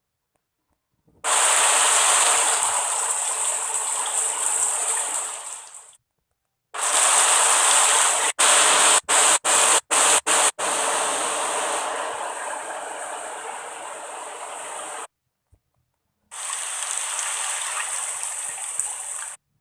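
Rushing water, a steady hissing rush that cuts in and out abruptly three times, with a run of brief dropouts in the middle stretch.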